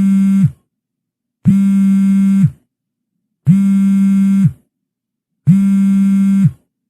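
Mobile phone vibration alert: a low buzz about a second long, repeating every two seconds with silence between. A buzz is just ending as the sound begins, and three more follow.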